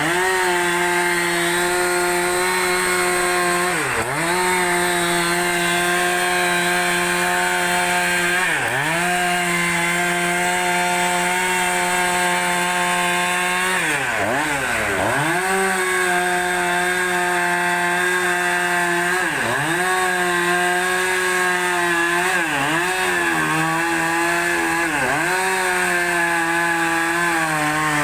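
Two-stroke chainsaw running at high revs while ripping a large log lengthwise. Its engine note dips sharply and recovers every few seconds.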